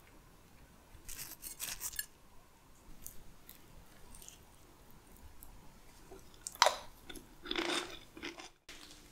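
Wooden spoon scooping rice, vegetables and curried cauliflower from a ceramic bowl: soft crunches and scrapes in a few short bursts, the loudest about two-thirds of the way through.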